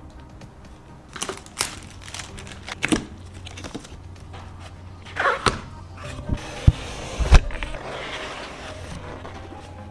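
Irregular clicks, knocks and a short rustle from PC components being handled and fitted during a build, over quiet background music.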